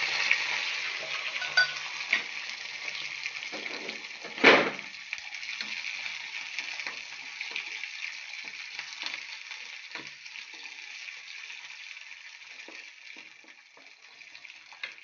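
Garlic and sliced green chillies sizzling in hot sesame oil in an iron kadai, loudest at first and slowly dying down. A spatula scrapes and taps against the pan as it stirs, with one loud knock about four and a half seconds in.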